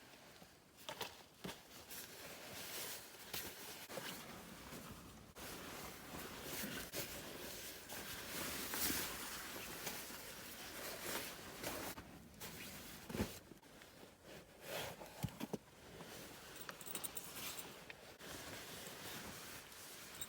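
Rustling with scattered soft clicks and knocks, as of gear or clothing being handled close by.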